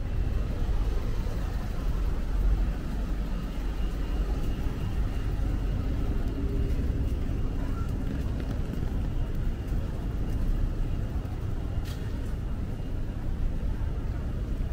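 City street ambience in the rain: traffic running on a wet road, making a steady low rumble and hiss. A single sharp click comes near the end.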